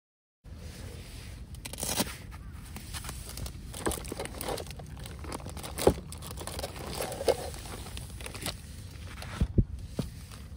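Crinkling, rustling handling noise with scattered knocks and taps, over a steady low rumble.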